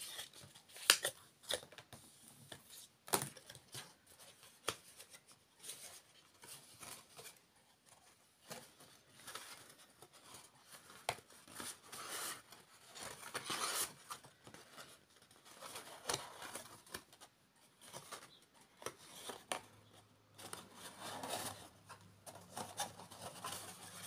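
Black cardstock being folded along its scored lines and handled: scattered light clicks and taps with a few longer rustling swishes of stiff card.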